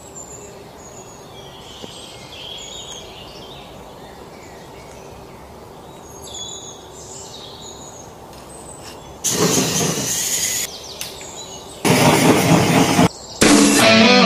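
Birds chirping over a steady outdoor background. About nine seconds in, loud rock music cuts in, breaks off twice, then carries on.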